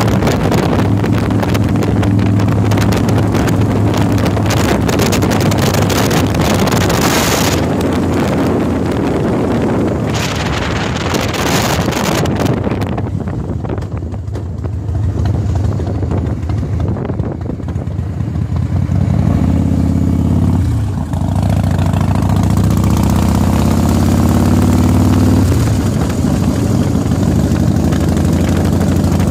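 Motorcycle engine running on the move, with heavy wind rush for the first part. It eases off about halfway through, then climbs in pitch as it speeds up again, and drops back sharply near the end as it changes gear.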